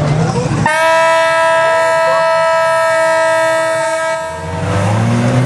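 A single long horn blast on one steady pitch, starting sharply about a second in and lasting about three and a half seconds. Race car engines are heard before it and come back, rising in pitch, near the end.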